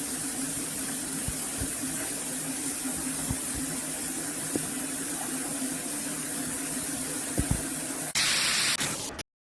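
Water spraying steadily from a 6-inch rain shower head, with a steady low hum and a few soft knocks under it. Near the end it turns suddenly louder and hissier for about a second, then cuts off.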